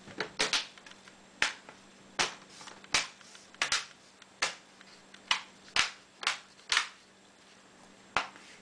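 Plastic screen bezel of a Dell Inspiron 15 5547 laptop being pressed back onto the lid, its clips snapping into place one after another: about a dozen sharp clicks at uneven intervals.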